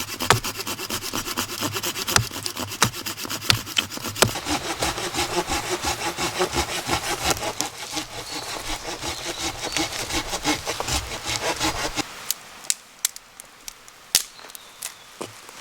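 Hand saw cutting through wood in steady back-and-forth strokes, a few per second. The sawing stops about twelve seconds in, followed by a few scattered light knocks.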